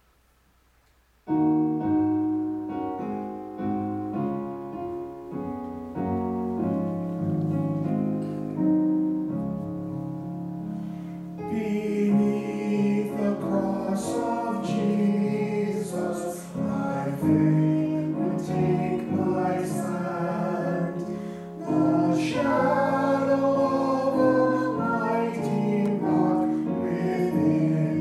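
Electric keyboards start playing slow, held chords about a second in, and a solo male voice begins singing over them a little before halfway.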